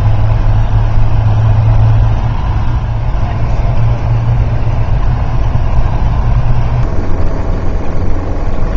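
Hummer H1 driving through deep snow, heard from inside the cab: a loud, steady low engine and drivetrain drone with road noise, the drone dropping a step about seven seconds in.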